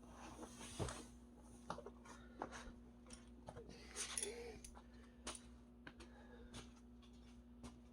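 Faint, scattered light clicks and taps with a brief rustling noise about four seconds in, over a steady low hum: small handling noises.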